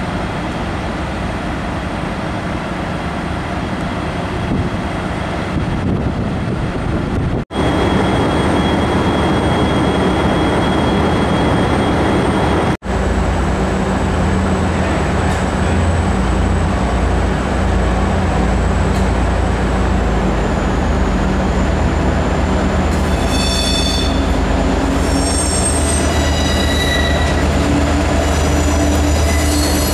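V/Line diesel-electric locomotives at a station platform, engine running steadily. Then an N class locomotive pulling carriages past runs with a low rumble while its wheels squeal in several high steady tones from about three-quarters of the way in. The sound cuts out briefly twice.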